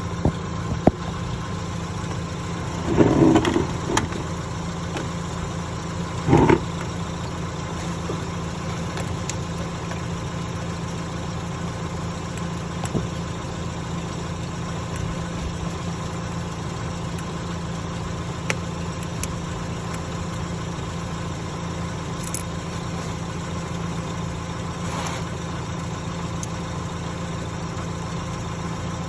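A steady low mechanical hum like an idling engine, with two brief louder clatters about three and six seconds in and a few faint clicks, as pliers work a hose clamp on the car's lower coolant hose.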